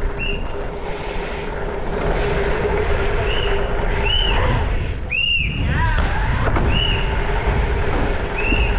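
Wind rush and rolling noise from a mountain bike riding the course, with a string of short, high squeaks and a falling squeal a little after the middle.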